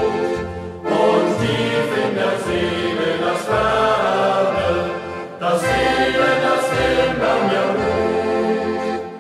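A mixed youth choir singing a German hiking song (Fahrtenlied) together, fading away near the end.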